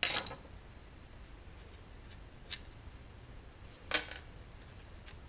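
A few light metallic clicks and clinks of hand tools and engine parts being handled on a workbench during engine disassembly: a short scrape at the start, a faint tick about two and a half seconds in, and a sharper clink about four seconds in.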